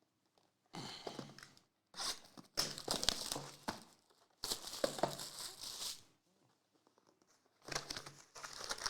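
Trading card packaging being torn open and crinkled by hand, in four bursts of tearing and rustling separated by short silences.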